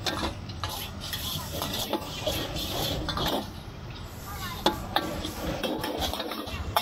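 Metal utensils clinking and scraping against dishes and pans at a food stall, with scattered sharp clicks and voices chattering in the background.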